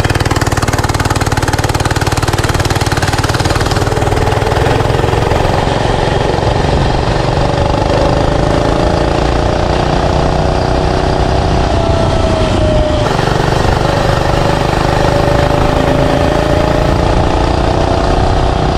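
Small 105cc single-cylinder four-stroke mini bike engine running steadily at speed in box-stock, governed form. About two-thirds of the way through its pitch drops briefly, then climbs back up.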